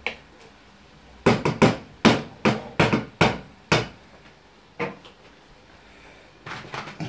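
Kitchen utensils knocking and clattering: a quick run of about nine sharp knocks, one more a second later, then a rattling clatter near the end.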